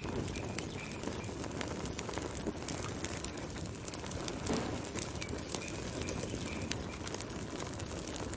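Wood fire burning: dense crackling and popping over a steady low rumble of flames. Two brief runs of faint, high, short chirping notes sound near the start and again about five seconds in.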